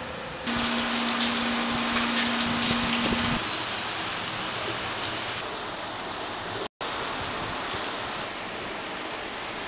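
Steady rain falling in a thunderstorm, a constant hiss that is louder for about three seconds near the start, with a steady hum under that louder stretch. The sound drops out for an instant past the middle.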